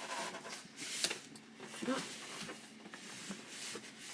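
Cardboard packaging of a large box rubbing and scraping as it is handled, with a few sharp taps, the loudest about a second in. A brief faint voice sound about two seconds in.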